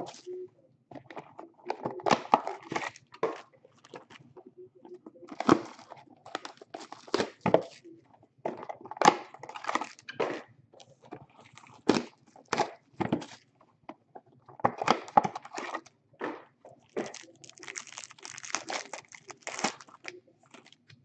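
Trading card pack wrappers and box packaging being torn open and crinkled by hand, in irregular rustling bursts.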